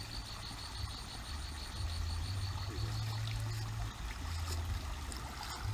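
Water trickling and dripping off a wet cast net as it is hauled out of a muddy ditch and gathered up by hand.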